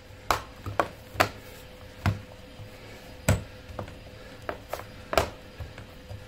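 The bottom cover of an HP Pavilion x360 laptop is pressed down around its edges, its retaining clips snapping into place in a series of sharp clicks at irregular intervals.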